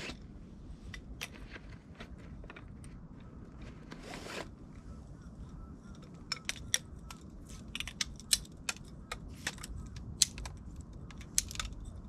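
Hiker's footsteps on a rocky mountain trail, with a low steady rumble, turning into sharp irregular clicks and scrapes, several a second, from about halfway through.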